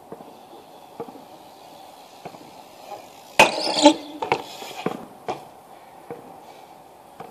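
BMX bike striking a concrete ledge during a trick: a loud metallic clack with a brief scrape about three and a half seconds in, then a few lighter knocks as the bike comes off and lands on the paving.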